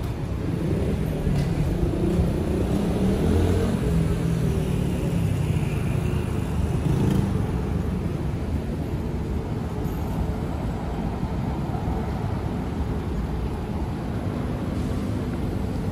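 City road traffic: a steady low rumble of cars and other motor vehicles, louder for the first several seconds.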